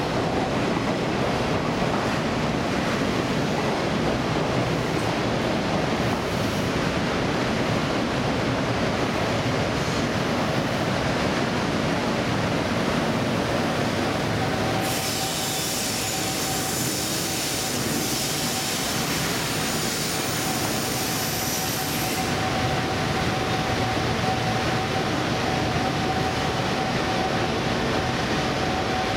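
Train of 24-series sleeper coaches rolling slowly past, its wheels and bogies running with a continuous rumble. From about halfway through, a steady thin wheel squeal whines on top. For several seconds in the middle a high hiss joins in.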